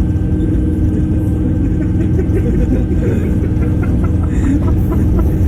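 Steady low rumble of a passenger train running, heard from inside the coach.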